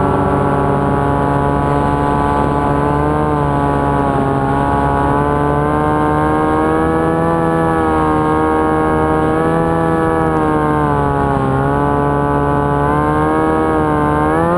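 The motor and propeller of an FPV flying wing, heard from its onboard camera over rushing wind, running with a steady whine that drifts up and down in pitch as the throttle changes on the landing approach. Near the end the whine climbs sharply in pitch.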